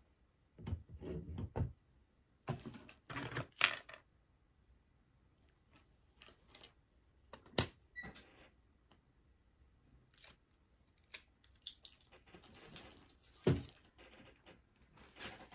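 Plastic LEGO pieces being handled and pressed together: scattered clicks and short bursts of rattling, with a sharp click about halfway through and another near the end.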